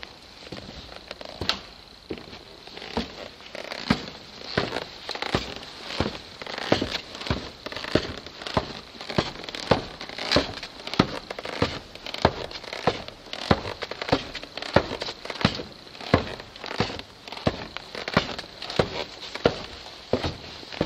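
Footsteps on a debris-strewn floor, sparse at first and then settling into a steady walking pace of just under two steps a second, each step a sharp, gritty tread.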